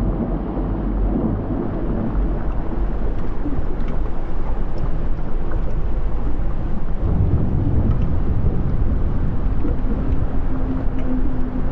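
Deep, continuous rumbling of an underwater volcanic eruption, swelling about two-thirds of the way through. A steady low hum joins it near the end.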